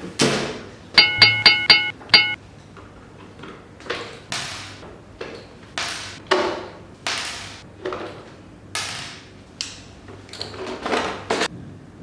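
Edited sound effects: a quick run of five bright, ringing chime notes, followed by a string of about a dozen whooshing swishes, each surging and fading away.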